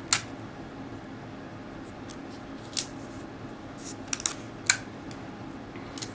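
Adhesive tape being pulled off and pressed down to fix a sheet of paper to a desk: a handful of short, crisp rips and crackles over a steady low hum.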